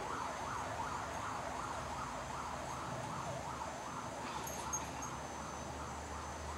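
Emergency-vehicle siren in a fast yelp, its tone rising and falling about three times a second, growing fainter toward the end.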